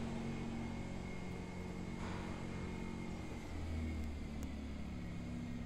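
A steady low mechanical hum with a droning tone that shifts slightly about three and a half seconds in, with a couple of faint clicks.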